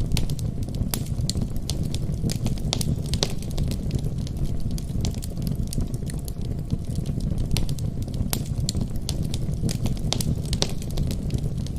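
Wood fire burning in a fireplace, crackling and popping irregularly over a steady low rumble of the flames.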